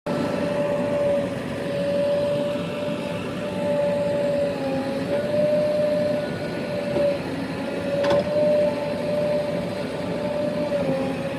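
JCB backhoe loader running, with a steady whine over the engine noise that dips briefly in pitch a few times. There is a single sharp knock about eight seconds in.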